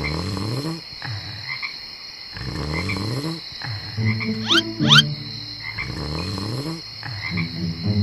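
Night-time ambience sound effects: a low, pitched call that slides in pitch and repeats about every two and a half seconds over a steady high-pitched drone, with two quick rising whistles about five seconds in.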